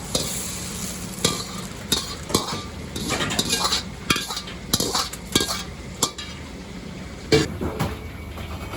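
Sausage fried rice being stir-fried in a wok: a metal ladle knocks and scrapes against the wok at an irregular pace, over frying sizzle and a steady low hum.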